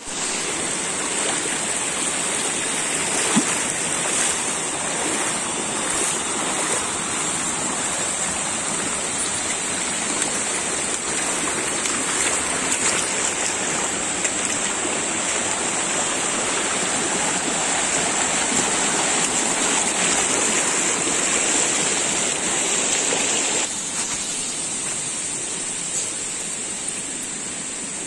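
Shallow rocky stream running over stones and small cascades: a steady rush of water that turns quieter near the end.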